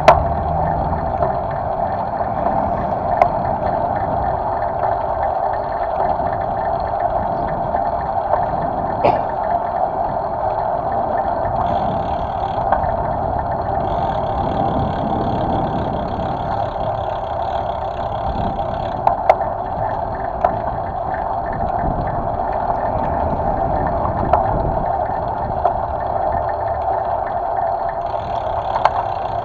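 Steady wind and rolling noise of a road bicycle riding along a street, picked up by a camera mounted on the handlebars, with a few short knocks as the bike goes over bumps.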